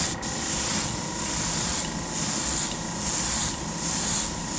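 Airbrush spraying paint in short repeated bursts of hiss over a steady low hum.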